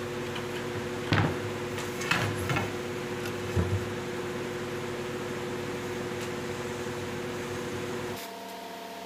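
A few short knocks of oak moulding pieces being set and pressed against a wooden door panel, over a steady mechanical hum. The hum changes abruptly near the end.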